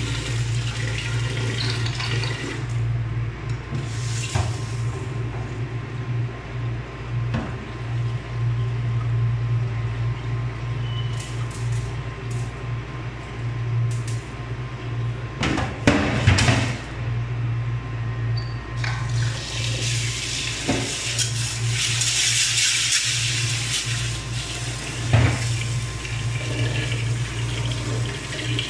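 Tap water running into an aluminium pot of mung beans in a metal sink as the beans are rinsed; the water stops for a while, the pot knocks against the sink a few times about halfway through, and the tap runs again to refill the pot. A steady low hum underneath.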